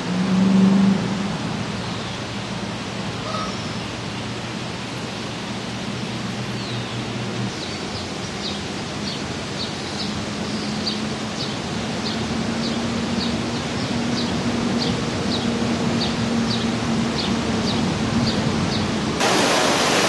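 Steady outdoor background rush with a mallard's honking call in the first second. From about eight seconds in, a small bird repeats a short high chirp about twice a second. Near the end the sound jumps to the louder rush of water pouring over a dam.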